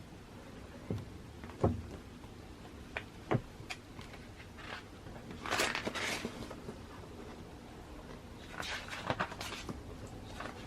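A paper magazine being handled and leafed through: a few light taps and knocks in the first few seconds, then two papery swishes of pages turning, about five and a half and nine seconds in.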